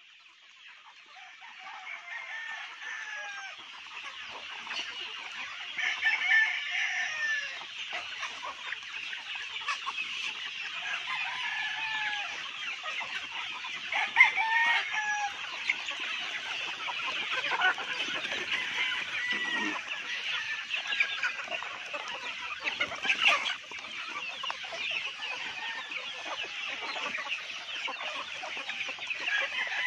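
A large flock of chickens feeding, many birds clucking and calling over one another in a dense, continuous chatter that builds up over the first couple of seconds.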